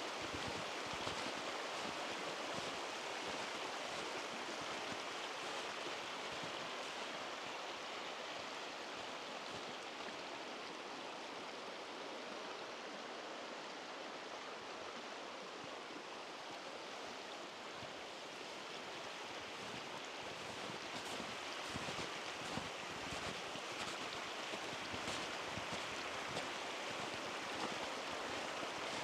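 Steady rushing water of a mountain stream, dipping slightly in level midway and rising again.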